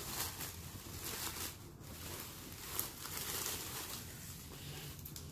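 Soft rustling of a fabric dust bag being handled and pulled off a handbag, with a few brief handling bumps.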